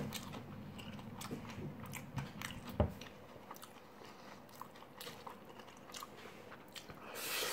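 Quiet chewing of fried rice with small mouth clicks, and a plastic spoon scraping and tapping in a styrofoam takeaway box. One sharper click comes about three seconds in, and a short hiss near the end.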